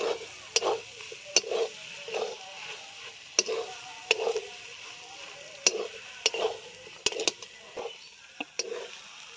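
Metal spatula scraping and knocking against a steel kadai as a cabbage-and-egg fry is stirred and tossed, in irregular strokes about once or twice a second, over the steady hiss of the food frying.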